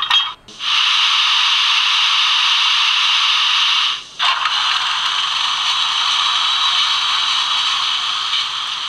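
Sound decoder of a Ree Modeles HO-scale PLM 141 steam locomotive model playing its steam sound effects. A short clank comes at the very start, then a steady loud hiss of escaping steam. The hiss breaks off for a moment about four seconds in, then resumes slightly quieter.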